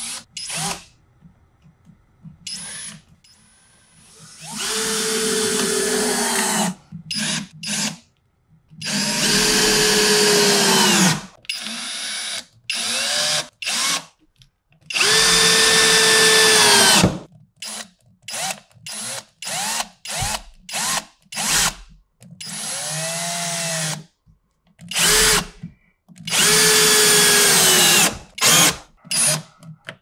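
Cordless power drill driving woodscrews into plywood and lumber. Four long runs of two to three seconds each, the motor's whine dropping in pitch at the end of each run, are broken up by many short trigger blips.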